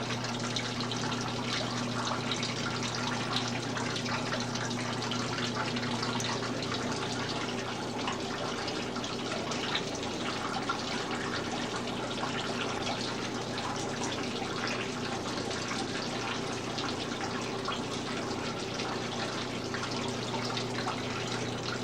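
Water splashing and trickling steadily through a small plaster model waterfall, over a steady low electric hum.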